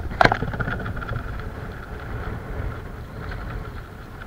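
Wind buffeting the microphone with a steady low rumble, and a single sharp knock about a quarter second in.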